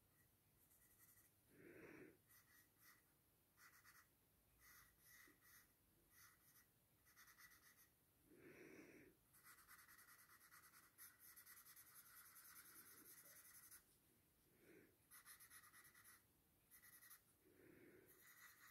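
Faint scratchy rubbing of a paper blending stump smudging graphite shading on drawing paper. It comes as a series of short strokes, with one longer steady rub of a few seconds midway.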